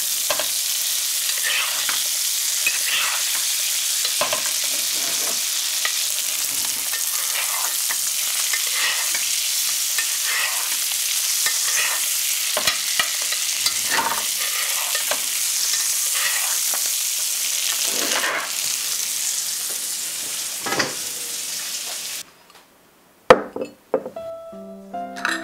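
Salmon fillets sizzling steadily in foaming garlic butter in a cast-iron skillet, with the scrape and splash of a basting spoon about every second and a half. Near the end the sizzle cuts off, a small bowl is set down on a wooden board with a sharp knock, and music begins.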